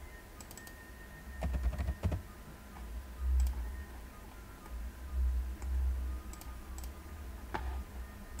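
Scattered computer keyboard keystrokes and mouse clicks, over a faint steady high whine and low muffled bumps.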